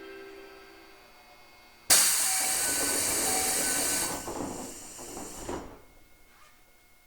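A sudden loud hiss of compressed air from a Toei 5300 series subway car's pneumatic system, starting about two seconds in. It holds steady for about two seconds, then dies away.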